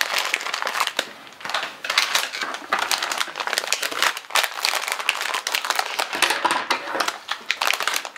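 Plastic LEGO minifigure blind-bag packets crinkling and rustling as they are handled and opened, with many small crackles and clicks throughout.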